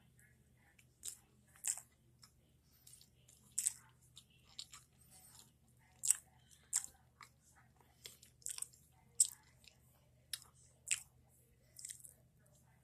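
Close-up chewing and biting of a Mrs. Freshley's peanut butter cupcake: soft, irregular mouth clicks and smacks, about one or two a second, over a faint steady low hum.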